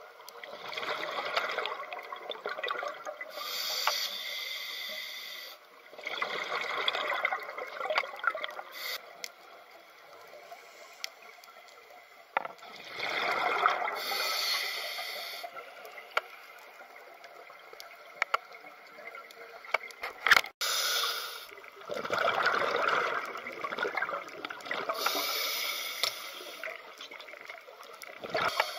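Scuba regulator breathing underwater: slow, irregular breaths, each a high hissing inhale through the regulator and a gurgling rush of exhaled bubbles, with scattered small clicks and one sharp knock about twenty seconds in.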